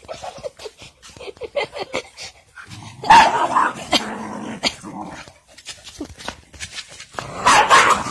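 A dog growling as it grabs and worries poultry, in loud rough bursts about three seconds in and again near the end, with light scuffing knocks in between.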